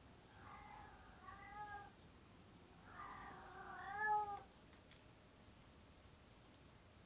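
A cat meowing twice, each call lasting over a second and bending in pitch. The second call starts about three seconds in and is louder.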